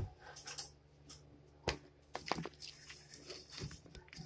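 Faint, scattered clicks and rustles of a phone being handled and moved, over a low steady hum.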